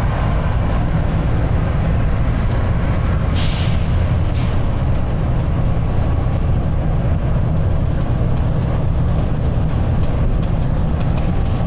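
Volvo B9TL double-decker bus's six-cylinder diesel engine running steadily, heard from on board. Two short hisses of air from the bus's air system come about three and a half and four and a half seconds in.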